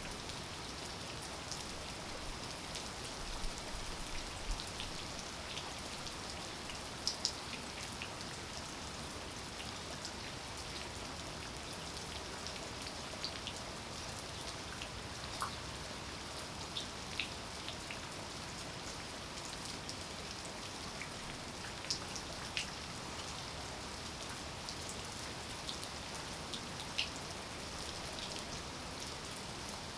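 Steady rain falling, with a dozen or so louder individual drops striking close by in sharp, scattered taps.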